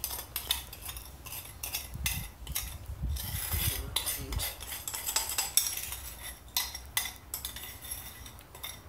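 Metal spoon scraping and clinking against a glass bowl as sugar is spooned out, with many short, sharp taps and scrapes.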